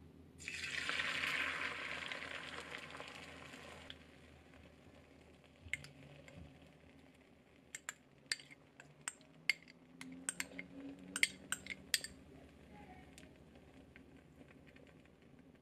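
Beaten egg poured into a hot oiled square tamagoyaki pan sizzles loudly for about three seconds, then dies down. Later comes a string of sharp clinks as a spoon scrapes minced-meat soboro out of a glass bowl onto the egg.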